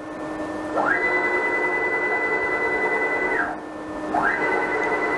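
Stepper motors of a 6040 CNC router driving the spindle head across the table: a whine that climbs quickly to a steady high pitch about a second in, holds for about two and a half seconds, drops away, then climbs again a little after four seconds. The short, sharp rise and fall are the quick acceleration and deceleration of motors freshly tuned in Mach3 with acceleration set to 200.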